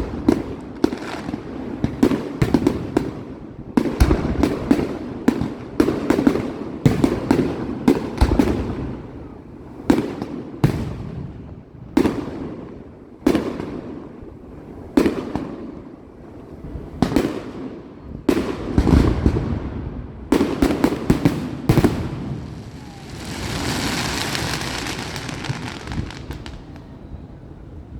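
Fireworks display: a long run of sharp shell bursts and bangs, irregular and often several in quick succession, each trailing a low rumbling echo. Near the end the bangs stop and a few seconds of steady hissing take over.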